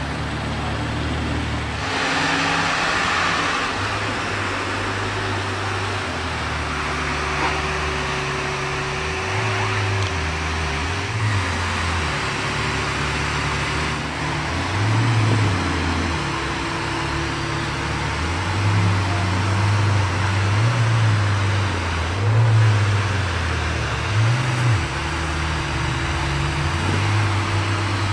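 Ferrari 812 Superfast's V12 running at low revs: a deep, steady engine note that rises briefly in pitch every few seconds.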